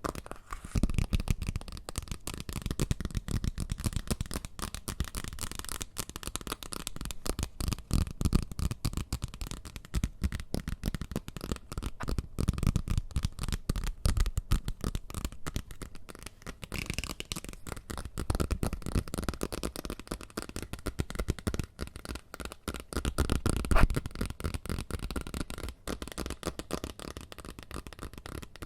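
Close-microphone ASMR trigger sounds: fast, dense tapping and rustling, many small clicks a second over soft low thumps on the microphone, with one sharper hit near the end.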